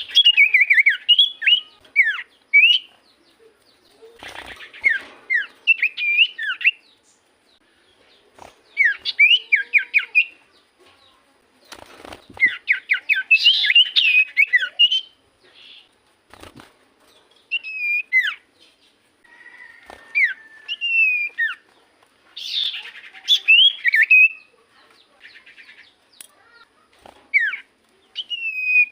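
Common iora (cipoh) singing in repeated bursts of quick, descending whistled notes mixed with rapid chattering trills, a phrase every few seconds with short pauses between. A couple of sharp clicks cut in near the middle.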